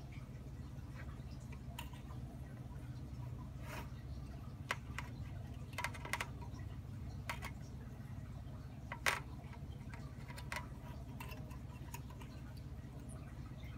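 Faint, scattered clicks and taps as bare wire leads are held and shifted against a 6-volt battery's terminals, the sharpest about nine seconds in, over a steady low hum.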